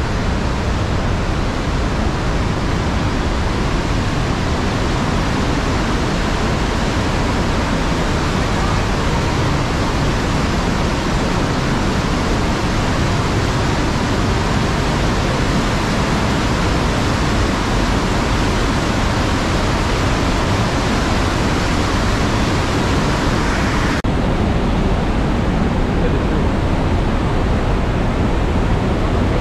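Mountain torrent rushing and churning through a narrow rock gorge: a loud, steady noise of white water. About 24 seconds in, its hiss drops away and it turns duller.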